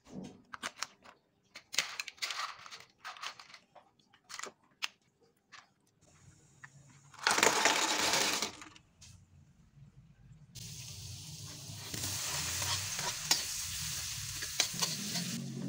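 Kitchen cooking sounds: scattered clicks and short scrapes, then a loud rush of pouring and splashing about seven seconds in as blood cockles are tipped into a pot of boiling water. From about ten seconds on, red onions sizzle steadily in margarine in a steel wok, with clicks of a spatula stirring them.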